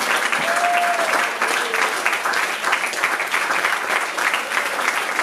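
Audience applauding: steady, dense clapping from a seated crowd at the end of a song.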